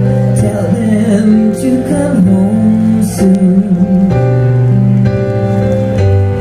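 A woman singing live over long held chords on a Roland digital stage piano, her voice wavering through the melody in the first half while the piano notes sustain underneath.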